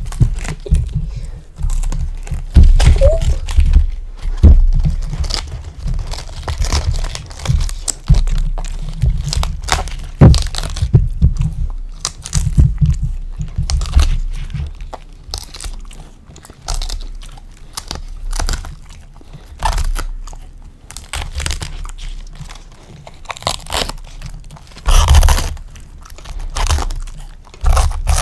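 Samoyed dog biting and chewing raw cabbage leaves close to the microphone: rapid, irregular wet crunches and snaps of the crisp leaves.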